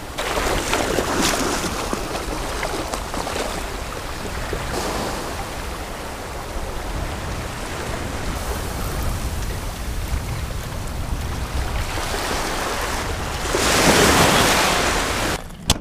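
Small surf washing up a sandy beach at the water's edge, with wind rumbling on the microphone; a bigger wave washes in near the end.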